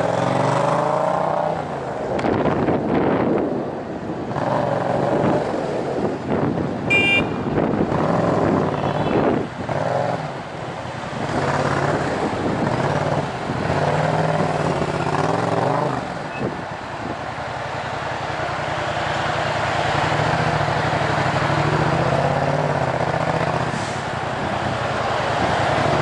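Yamaha MT-07's parallel-twin engine running through a Tiger full exhaust system with decat headers, heard from the rider's position while it creeps through traffic. The revs rise and fall in short pulls of the throttle, over the noise of surrounding traffic, with a brief high-pitched tone about seven seconds in.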